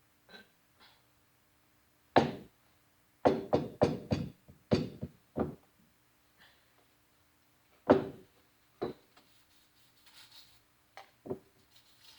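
Sharp, irregular knocks from hard objects being struck or set down on a surface: one about two seconds in, then a quick run of about six, then a few single knocks.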